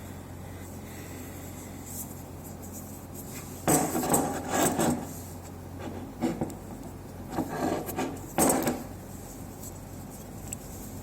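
A Mazda RX-8's lower steering universal joint, sandblasted bare, being handled on a hard surface: bursts of metal clatter and rubbing. The longest comes about four seconds in, with shorter ones around six and eight seconds.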